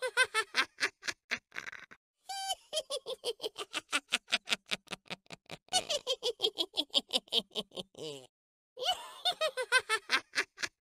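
A witch's high-pitched cackling laugh: rapid 'heh-heh-heh' pulses, about five a second, falling in pitch, in long bouts with short breaks about two seconds in and again about eight seconds in.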